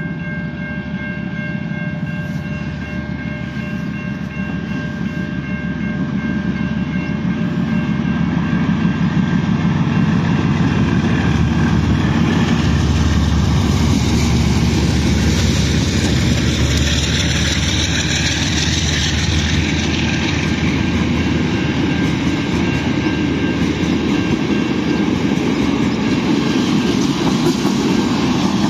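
A level-crossing warning bell rings steadily, then fades under a KiwiRail freight train as it grows louder over the first several seconds. The train's DX-class diesel-electric locomotives run past with a heavy low rumble, and the wagons roll by behind them.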